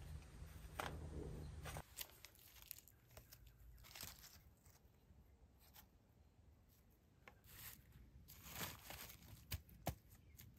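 Faint, scattered crunches and clicks of charred sticks and charcoal being moved and laid in a fire pit, with a few sharper wooden knocks near the end as a log is set down.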